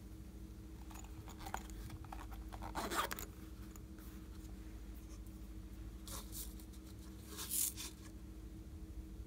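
Scratchy rustling and scraping as a small shell-shaped plastic case is handled and opened and loose sequins are tipped out into a hand. The sounds come in two spells, the louder about three seconds in and another near the end, over a faint steady hum.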